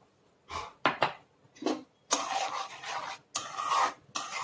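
Metal spoon stirring and scraping through thick coconut gravy in a metal kadai: a few short strokes at first, then longer, continuous scraping from about two seconds in.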